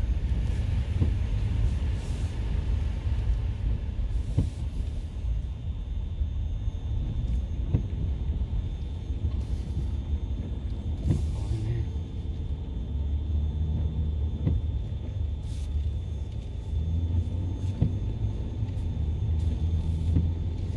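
Low, steady rumble of a vehicle driving slowly, heard from inside the cab, with a few faint knocks and bumps along the way.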